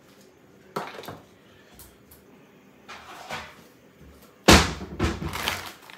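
Kitchen handling noises: a few light knocks, then a sudden loud knock and clatter about four and a half seconds in as a cutting board is fetched from under the counter and set down.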